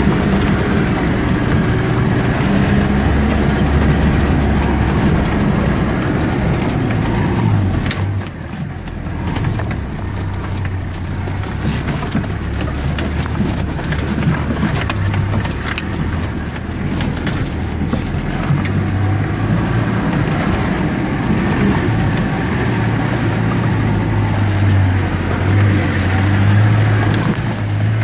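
Land Rover Defender 130's engine running under load as it drives over a rough offroad track, heard from inside the cab, with scattered knocks and rattles. The engine note drops about eight seconds in, then builds again.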